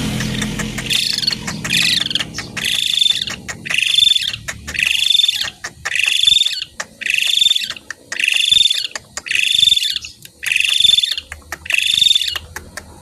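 Asian pied starling (jalak suren) giving a harsh, rasping call over and over at a steady pace, a little more than one a second, starting about a second in.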